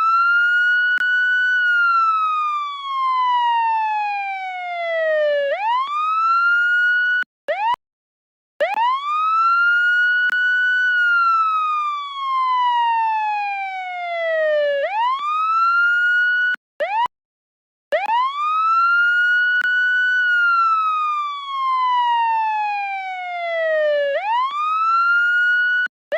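Police siren wailing: each cycle climbs quickly to a high pitch, holds briefly, then falls slowly over about four seconds before climbing again. The sound breaks off into about a second of silence twice, roughly nine seconds apart.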